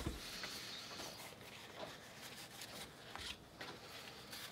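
Faint rustling and light ticks of paper sticker sheets being slid and handled on a tabletop.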